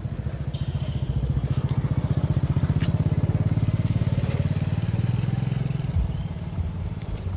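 A motor vehicle's engine running, growing louder for a few seconds and then fading away, as if passing by. Short high chirps sound faintly over it.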